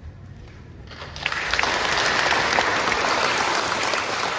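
A congregation applauding. The applause breaks out about a second in, swells quickly into dense clapping, and then holds steady.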